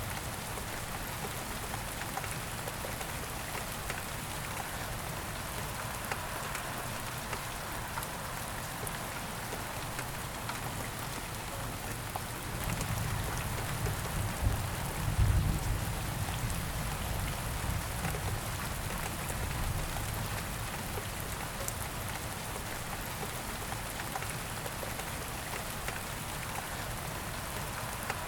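Steady rain falling and pattering on surfaces, a dense hiss with many small drop ticks. About halfway through, a low rumble swells for a few seconds and then fades.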